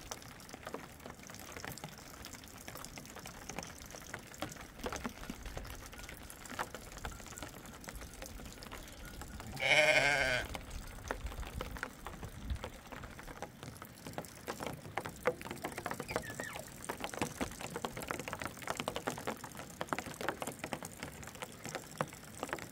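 A sheep bleats once near the middle: one wavering call of about a second. Around it are scattered small knocks and clicks.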